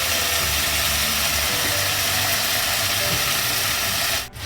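Onion-tomato biryani masala with curd sizzling in a pan as it is stirred, a steady frying hiss with spatula scraping; the sound breaks off sharply near the end.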